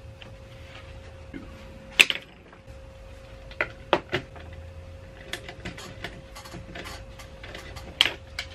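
Scattered, irregular clicks and taps of plastic toy blasters and a screwdriver being handled on a wooden workbench as a blaster is opened up, with a faint steady hum underneath. The sharpest click comes about two seconds in.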